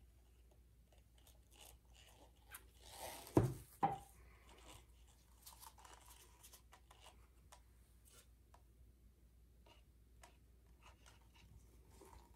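Faint clicks and crinkles of plastic and paper cups being handled while acrylic paint is poured into a clear plastic cup, with two louder knocks about three and a half seconds in.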